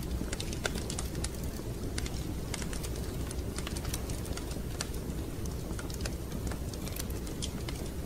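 Wood fire crackling in a fireplace: many irregular sharp pops and snaps over a steady low rumble.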